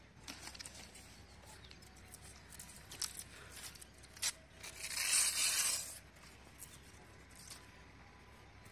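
Green palm leaflet being stripped and split by hand: scattered small crackles and rustles, then a longer tearing rip about five seconds in.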